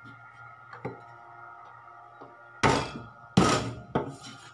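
Flat of a cleaver smacking garlic cloves against a wooden cutting board to crush them. There is a light knock about a second in, then two loud whacks close together near the three-second mark, followed by a lighter knock.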